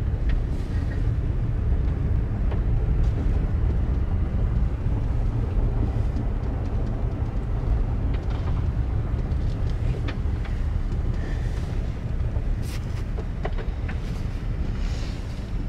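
Steady low rumble of a car rolling along, with a few faint clicks.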